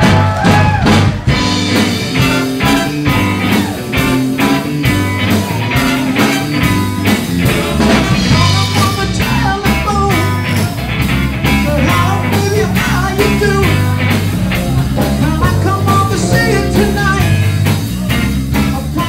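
Blues band playing with a singer: drums, bass and guitar over a steady beat.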